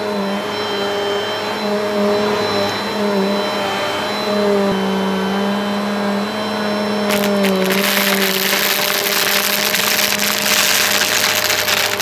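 Bissell upright vacuum cleaner running with a steady motor hum. From about seven seconds in, plastic gems rattle up through the brushroll in a dense run of rapid clicks.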